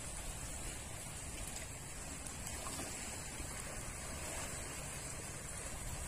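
Small lake waves lapping steadily at the shoreline, a soft continuous wash of water.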